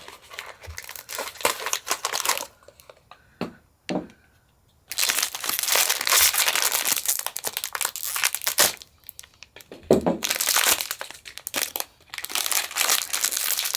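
Packaging of a blind-box collectible figure being torn open and crinkled by hand, in stretches with short pauses, lighter at first and loudest from about five seconds in.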